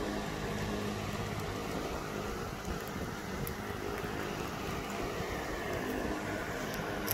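Steady low hum and hiss of a running aquarium pump.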